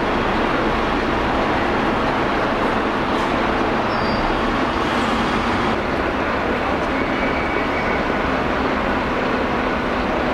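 Steady city-centre traffic noise: a continuous hum of passing vehicles.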